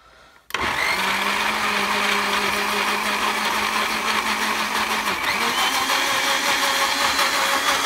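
Tefal Blendforce jug blender switched on about half a second in and running steadily, blending fruit, milk and yogurt into a smoothie. Its motor pitch dips briefly about five seconds in, then picks up again.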